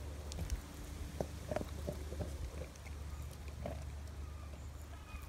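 Large dog gnawing on a hand-held bone: irregular crunches and clicks of teeth on bone over a steady low hum.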